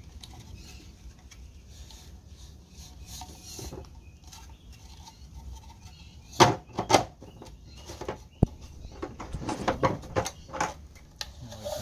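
3D-printed plastic tower section and plastic hose being handled: rubbing and scraping as the hose is pushed and pulled through the part, then a cluster of sharp plastic knocks and clicks in the second half as the section is fitted and twisted to lock.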